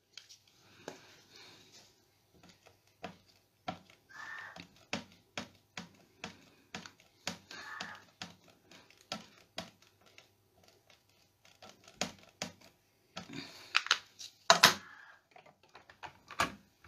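Scattered light taps and clicks from hands working a stamp positioning tool as a clear stamp on its acrylic lid is pressed onto the paper, with a few louder clacks near the end as the hinged lid is lifted.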